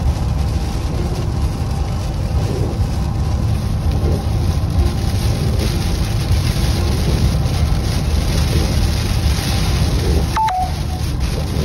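Steady low road rumble inside a car driving in heavy rain, with a hiss of rain and spray on the car that thickens about halfway through. About ten and a half seconds in, a short two-note electronic beep sounds, a higher tone then a slightly lower one.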